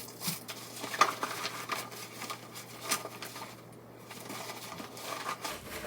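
Handling noises of items being taken out of a bag: rustling with a few sharp clicks and light knocks, the sharpest about a second in and about three seconds in.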